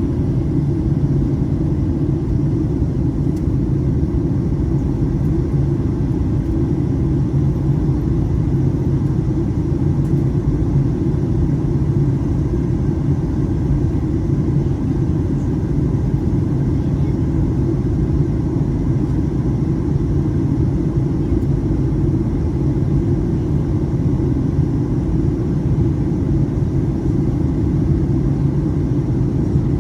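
Steady low rumble inside a passenger jet's cabin: engine and airflow noise, unchanging throughout.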